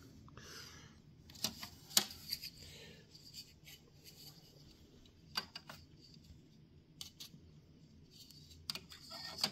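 A handful of faint clicks and taps from hands handling the open server and camera, the sharpest about two seconds in, over low room noise.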